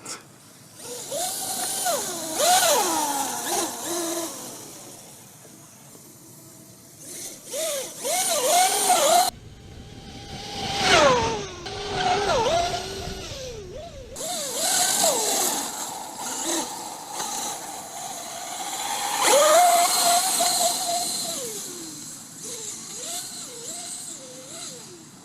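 Traxxas UDR RC truck driving: its brushless electric motor whines up and down in pitch again and again with the throttle, over a steady hiss.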